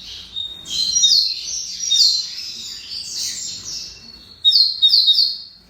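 Double-collared seedeater (coleiro) singing a fast, continuous twittering song, ending in three quick downslurred notes before it stops near the end.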